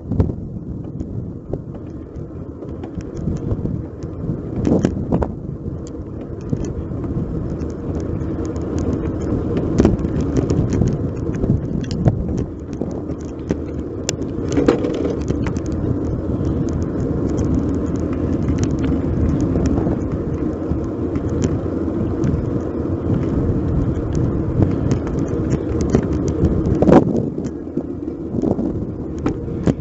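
Giant Cross City 2 bicycle ridden along a road, heard as a steady rumble of wind and road noise on the bike-mounted camera's microphone. Light rattling clicks run throughout from the bike and its camera mount, with a few sharper knocks over bumps, the loudest near the end.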